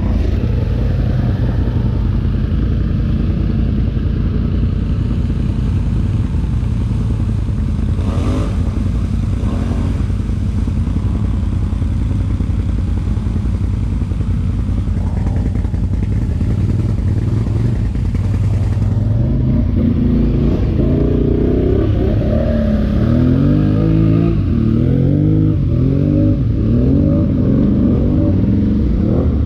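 ATV engine running while riding. In the last several seconds its pitch rises and falls in repeated steps as engine speed changes.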